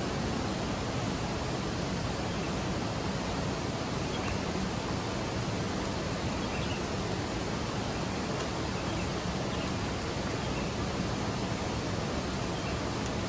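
Steady rushing of a waterfall, an even noise that does not change.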